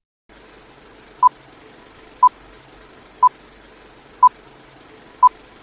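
Countdown timer sound effect in the style of an old film-leader countdown: five short beeps at one pitch, one each second, over a faint steady hiss.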